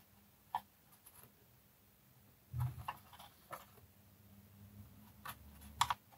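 Faint, scattered clicks and taps of a paint brush and small hobby paint supplies being handled, with a soft low bump and a few clicks about two and a half seconds in and a quick pair of clicks near the end.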